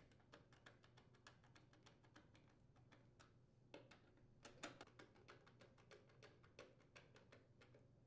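Faint, short clicks, about three a second, of a screwdriver turning the mounting screws that secure the air filter cover on a Briggs & Stratton small engine, with a few louder clicks near the middle.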